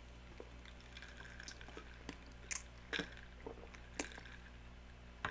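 Quiet chewing and mouth sounds of a person eating, with a few sharp clicks in the second half.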